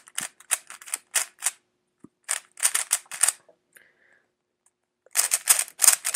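YJ YuLong 3x3 speed cube being turned quickly by hand: its plastic layers make rapid clicking, scraping turns in three runs, with a pause of about a second and a half before the last run. The cube is fresh out of the box and dry, not properly lubricated.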